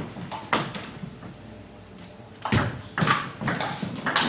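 Table tennis ball clicking off bats and table. There are a couple of single clicks near the start, then a rally begins about halfway through, with hits coming about twice a second.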